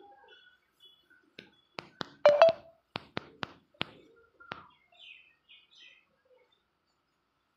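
A quick run of sharp slaps and taps, loudest about two and a half seconds in, with a few faint chirps a little later.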